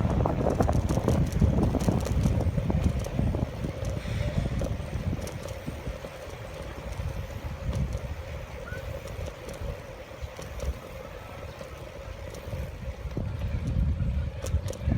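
Wind buffeting the microphone during a bicycle ride: a rough, uneven low rumble that eases off in the middle and builds again near the end, with a faint steady hum and scattered light clicks.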